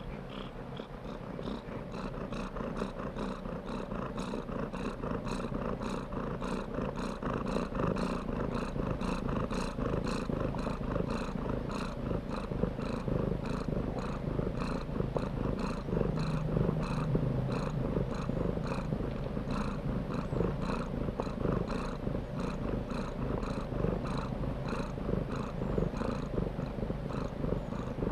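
Domestic cat purring continuously, with an even pulsing rhythm of about two to three beats a second.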